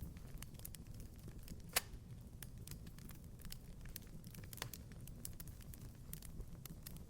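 Wood fire crackling in a fireplace: irregular small pops and snaps over a low, steady rumble, with a sharper pop just under two seconds in.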